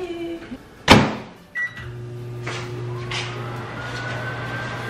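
Over-the-range microwave oven being started: a sharp clunk as the door shuts about a second in, a short keypad beep, then the oven running with a steady hum and a faint, slowly rising whine.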